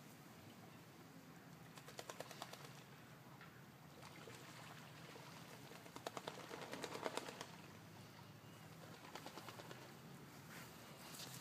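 Ducks giving three short bursts of rapid rattling clicks: about two seconds in, again around six to seven seconds in (the loudest), and once more about nine seconds in, over a faint background.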